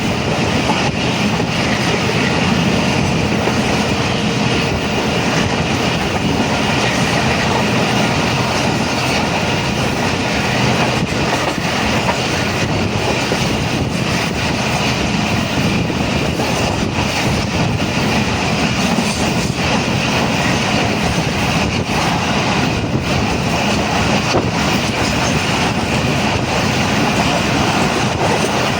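Train running along the track, a steady rumble with faint clicks of the wheels passing over rail joints.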